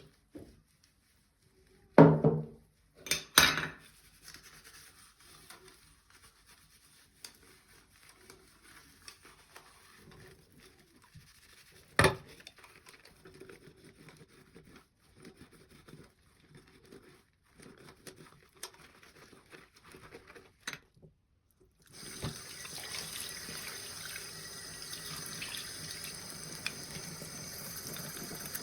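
Scattered knocks and clatter of items being handled, the loudest about two and twelve seconds in. About twenty-two seconds in, water starts running steadily from a kitchen tap.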